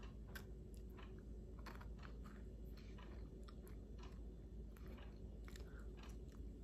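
A person biting into and chewing a piece of a baked homemade dog biscuit, with faint, irregular crunches about three a second.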